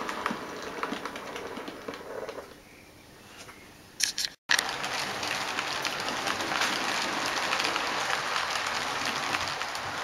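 Model trains running on the layout's track: fine rapid clicking and rattling of small wheels over rail joints. The rattling fades for a couple of seconds, then after a short loud crackle and a split-second dropout it returns as a steady dense clatter.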